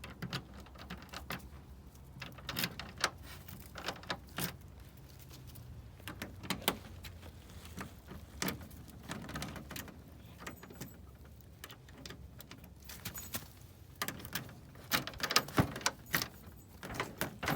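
Keys jangling, with scattered metal clicks and knocks as a vending machine's key and locks are handled, over a faint low steady hum.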